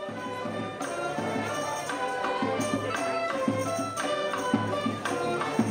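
Music: a melody of held notes over a steady beat of drum strokes.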